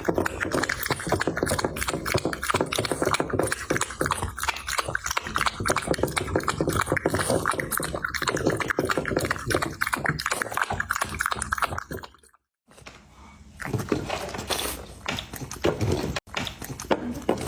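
Dog eating from its bowl: rapid, dense chewing close to the microphone. It cuts off briefly about twelve seconds in, then resumes more sparsely.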